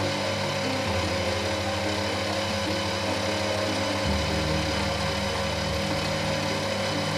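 Metalworking machine tool running steadily, its motor humming at a constant pitch.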